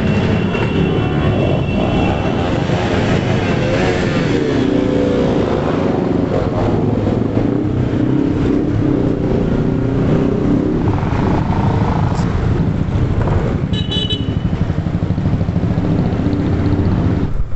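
A stream of motorcycles riding past with loud, revving exhausts, with short honks of a horn near the start and again about two-thirds of the way through.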